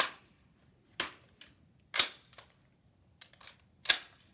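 Gunshots on a shooting range: four sharp reports about a second apart, each with a short echo, with a few fainter clicks between them.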